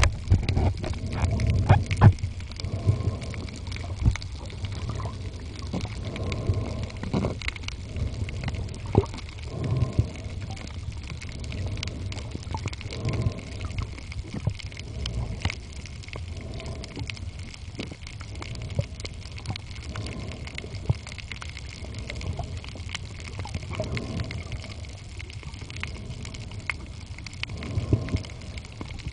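Underwater sound picked up by a camera held beneath the surface on a reef: a steady low rumble of moving water with many scattered clicks and crackles.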